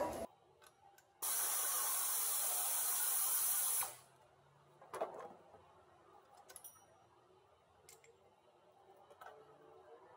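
Pneumatic air ratchet running for nearly three seconds as a steady hiss of exhaust air, starting and stopping abruptly, with no ratchet clicking heard; a light clunk follows, then a few faint clicks.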